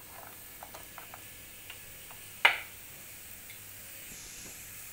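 Spatula clicking and scraping against a non-stick frying pan while sautéing diced vegetables and mushrooms: a scatter of light taps, with one sharp knock about two and a half seconds in.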